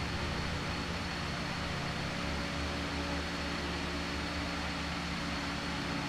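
Steady hum and hiss of a running electric fan, with a thin, constant high whine over it.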